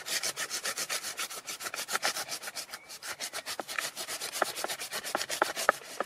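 Petzl Spatha climbing knife sawing through a knot in a thick climbing rope on a wooden board: quick rasping back-and-forth strokes, several a second, with a few sharper clicks in the second half.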